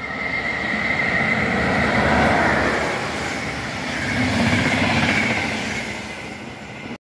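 Passenger train of coaches passing along the platform: wheels rumbling on the rails with a steady high whine, swelling twice as the coaches go by and fading as the train moves off. The sound cuts off suddenly near the end.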